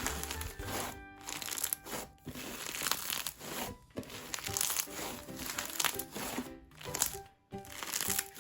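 Background music with a steady run of crinkling, crackling sounds from something being handled over it.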